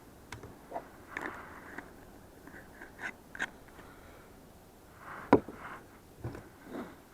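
Scattered handling noises: light clicks, brief scrapes and knocks of small objects being moved about, with one sharper knock about five seconds in.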